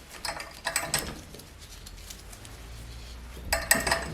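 Light metallic clinking and jingling in two short clusters, one near the start and one near the end, over a faint low hum.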